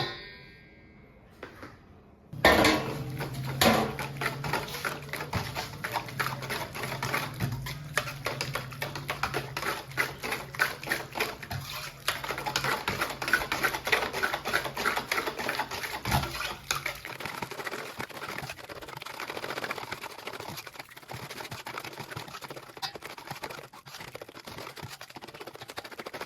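Soap batter being stirred by hand after oil is added: a fast, continuous clicking and scraping of a utensil against the mixing bowl. A low steady hum runs under it for the first two-thirds.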